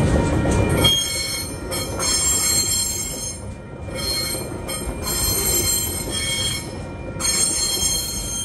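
Container wagons of a TasRail freight train rolling past, their low rumble dropping away about a second in. Then the wheels squeal high-pitched, in three bursts of about two seconds each.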